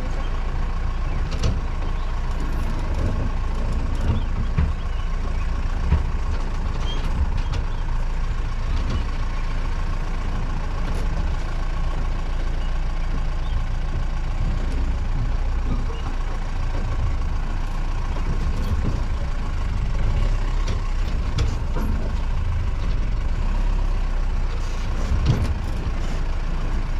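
Off-road jeep's engine running under load as it crawls over a rough, rocky track, a steady low rumble with a faint high whine beneath it and occasional knocks and rattles from the body.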